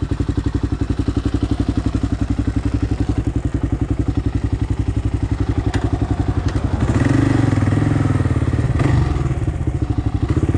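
Kawasaki KLR650's single-cylinder engine running with a rapid, even beat of firing pulses. It grows louder and fuller for about two seconds a little past the middle.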